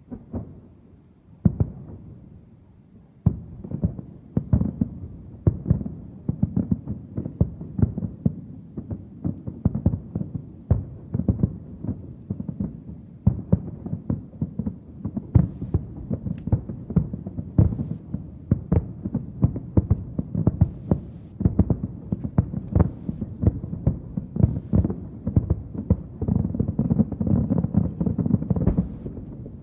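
Distant aerial fireworks shells bursting: a few single booms, then a rapid barrage of several bursts a second that merges into a continuous rumbling volley near the end.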